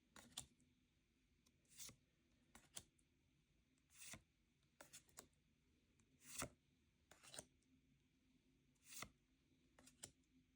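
Faint rustles and soft clicks of card packaging and trading cards being handled, about a dozen short, irregular sounds a second or so apart.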